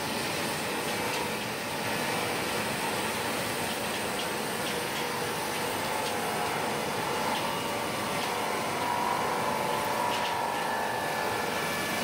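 Sawmill gang rip saw running and cutting a timber into several boards as feed rollers push it through: a steady, dense machine noise, with a faint whine that grows stronger about three-quarters of the way through.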